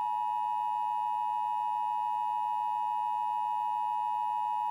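Emergency Alert System attention tone: a steady, unbroken electronic tone that interrupts programming to signal that an emergency alert message is about to follow.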